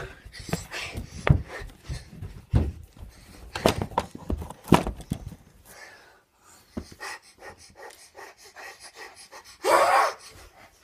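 A girl breathing hard close to the phone's microphone, with knocks and rubbing as the phone is handled. Just before the end comes a loud breathy burst, half a second long.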